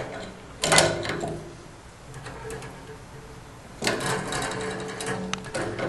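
Wrench and metal fittings being worked on a water heater's gas control valve, tightening the thermocouple connection: several short bursts of metallic clicking and scraping, the loudest about a second in.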